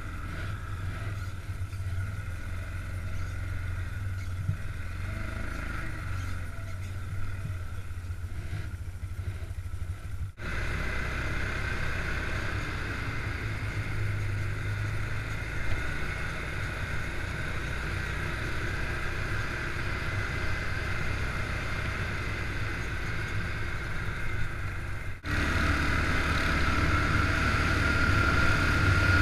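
Stels ATV 700H EFI quad bike's engine running steadily under way, cut by two sharp brief dropouts about 10 and 25 seconds in. It is louder in the last few seconds, with a whine that rises slightly.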